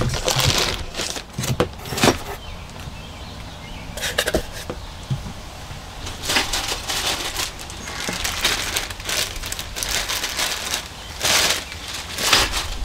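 Irregular rustling and crinkling handling noises as a length of plastic PEX-A tubing is moved and drawn through the hand.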